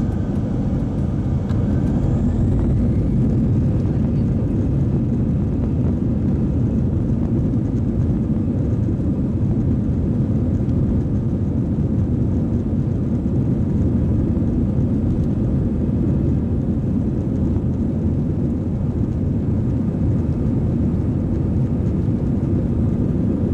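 Jet airliner's engines heard from inside the cabin, spooling up for the takeoff run with a faint rising whine in the first few seconds, then a steady rumble.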